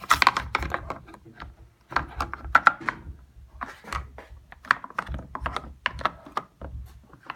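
Irregular plastic clicks and taps as the parts of a front-load washer's detergent dispenser are handled.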